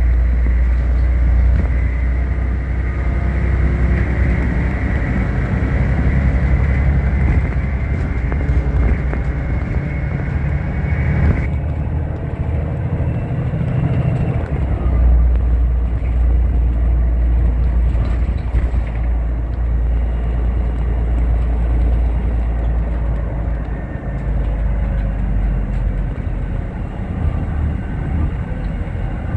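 Volvo B12BLEA articulated bus driving, heard from inside the cabin: a steady low engine rumble with road noise. A high whine climbs slightly in pitch over the first eleven seconds or so, then cuts off suddenly.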